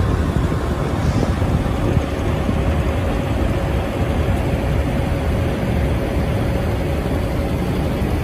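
Steady low rumble of diesel semi trucks idling in a truck-stop lot.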